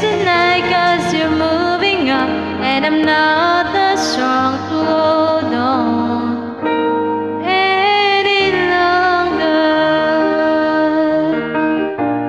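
A woman sings a slow pop ballad into a close microphone over instrumental backing, her voice gliding between held notes.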